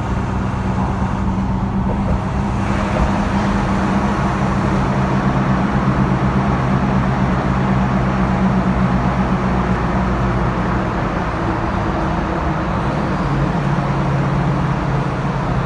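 Motor vehicle driving at road speed, heard from inside: a steady engine hum over tyre and road noise.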